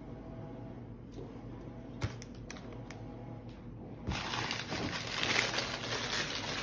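Tissue paper rustling and crinkling loudly as hands dig through a gift box, starting about four seconds in. Before that there are only a few light clicks and knocks, the sharpest about two seconds in.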